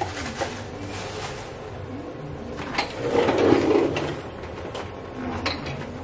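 Things being handled by hand: three sharp light clicks or knocks, with a louder rustling, rubbing stretch about three seconds in.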